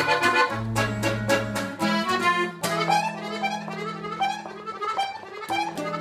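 Live norteño-style music: a button accordion playing melody and chords over a strummed acoustic guitar. The strumming is steady in the first half, then a long held accordion chord carries the middle until the strums pick up again near the end.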